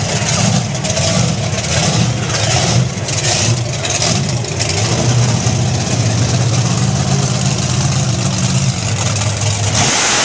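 Bigfoot monster truck's engine running loud and revving up and down as the truck drives over crushed cars.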